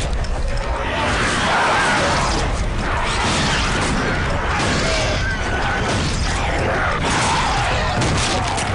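A violent struggle caught on a handheld camera that is being knocked about: loud, harsh, continuous noise over a steady deep rumble.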